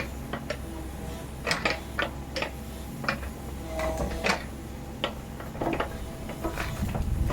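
Kubota KX61-3 mini excavator's diesel engine running steadily, with many irregular sharp clicks and knocks on top of it.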